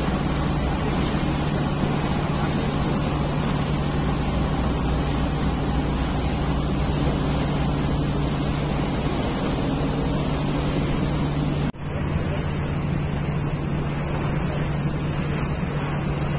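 Steady low drone of a river boat's engine mixed with rushing water and wind noise on the microphone. The sound breaks off for an instant about twelve seconds in, then carries on much the same.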